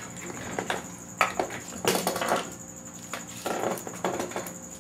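Handling noises from working on a piston: a few short bursts of rustling, scraping and light clattering, the loudest about two seconds in, over a steady high-pitched tone.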